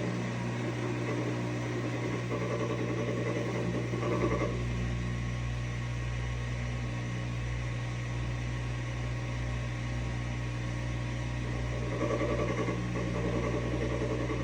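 GE front-load washing machine running its spin cycle with a steady motor hum and a grinding noise, which the owner is asking for help to diagnose. The grinding swells for a couple of seconds about two seconds in and again near the end.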